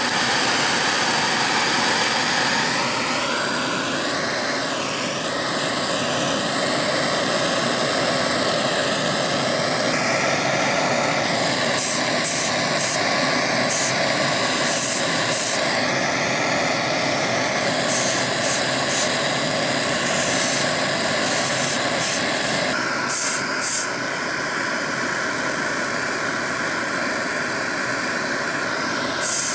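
MAPP gas hand torch burning with a steady hiss, its flame heating small brass engine parts so they can be tinned with soft solder.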